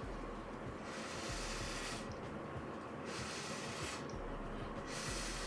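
Breath blown through a drinking straw onto wet poured acrylic paint, a breathy hiss in three puffs of a second or two each, spreading the paint out across the canvas.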